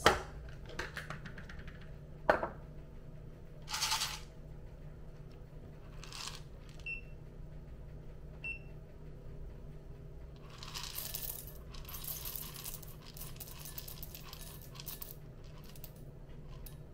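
Whole roasted coffee beans poured from a plastic container into a glass tumbler on a kitchen scale, a dense run of small clicks and rattling for several seconds from about ten seconds in. Before that come a couple of sharp knocks as the glass ware is set down and two short high beeps from the digital scale.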